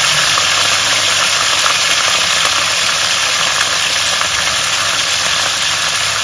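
Whole garlic cloves and chili peppers sizzling steadily in hot olive oil in a pan, with fine crackles through the sizzle.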